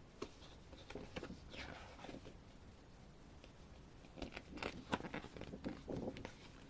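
Soft rustling and light taps of a glossy photo booklet being handled and its pages turned, in two short bursts about a second in and again past the four-second mark.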